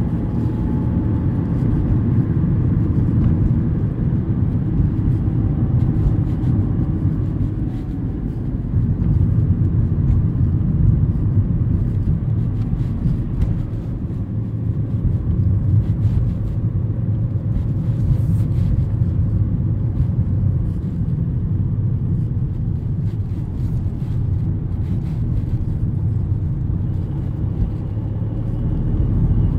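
Steady low engine and road rumble heard inside a Volkswagen car's cabin while it drives, easing a little in loudness now and then.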